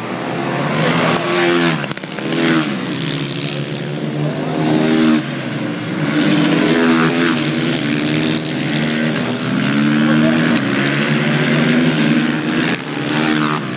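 Supermoto race motorcycles riding through a corner one after another, engines revving up and dropping in pitch again and again as the riders brake, shift and accelerate.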